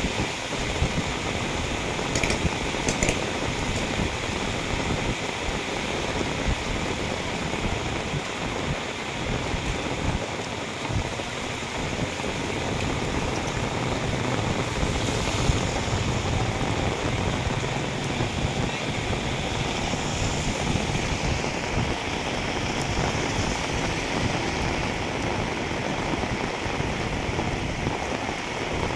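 Heavy rain falling steadily on a wet road, with runoff water running along the gutter.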